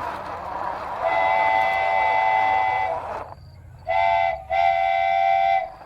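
A multi-tone horn sounds three times: a long blast of about two seconds, a short blast, then a blast of about a second, each a steady chord.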